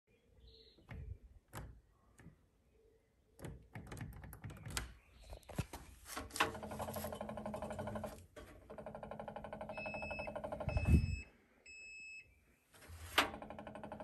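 Gorenje WaveActive front-loading washing machine: a few clicks and knocks, then its steel drum being turned by hand with a rapid, steady rattling buzz that stops and starts. A loud thump comes about eleven seconds in, and three short beeps sound from the control panel.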